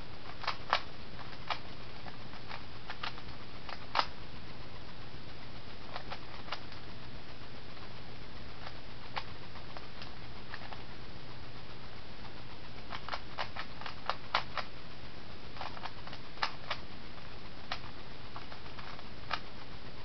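A Rubik's Cube being turned fast by hand: irregular plastic clicks of the layers snapping round, sometimes in quick runs of several, over a steady low hum.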